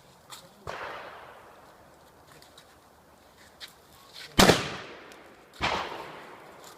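Three shotgun shots spread over several seconds, the middle one the loudest, each trailing off in a long echo.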